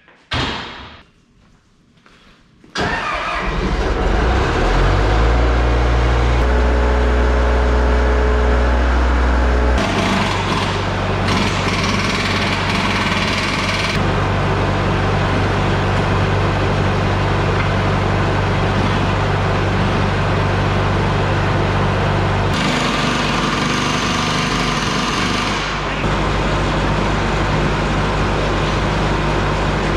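A machine's motor starts up about three seconds in and runs steadily and loudly, its low pitch shifting a few times.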